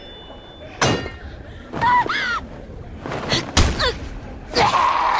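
Fight sound effects: sharp hits and thuds, with short grunts and cries from the fighters between them and a longer strained cry near the end.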